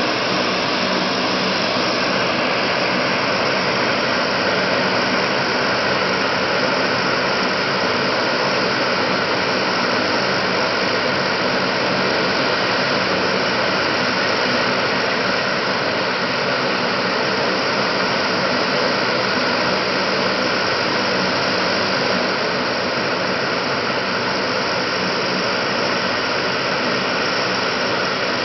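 Lockheed C-130 Hercules's four Allison T56 turboprop engines running steadily on the ground, all four propellers turning: an even, loud turbine rush and propeller drone with several steady low tones, holding the same level throughout.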